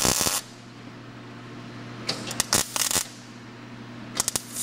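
Wire-feed welder laying short tack welds on car sheet metal: brief bursts of arc crackle, one right at the start, a couple around two to three seconds in, and one near the end, over a steady low hum. The tacks are fastening loosely welded aftermarket sheet-metal pieces so they stop flexing.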